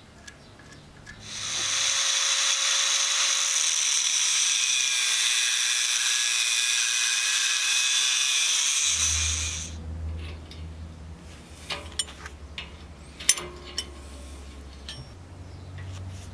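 Angle grinder with an abrasive cut-off disc cutting through a rusty steel rod held in a vise: a loud, steady high whine with grinding hiss that starts about a second in and stops after about eight seconds. A few sharp metal clicks follow near the end.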